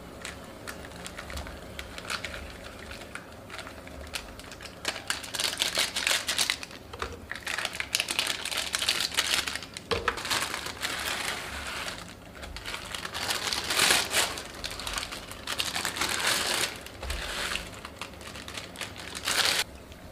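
Plastic seasoning sachets and packaging crinkling and tearing as they are handled and emptied: a busy run of crackles and rustles, loudest about two-thirds of the way through and again just before the end.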